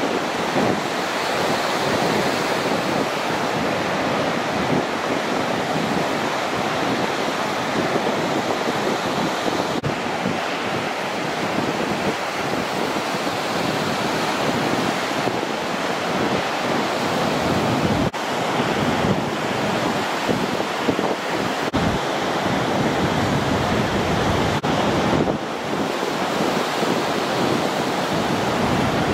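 Ocean waves breaking and rushing in a steady roar of surf, with wind buffeting the microphone. The sound is broken by a few sudden cuts.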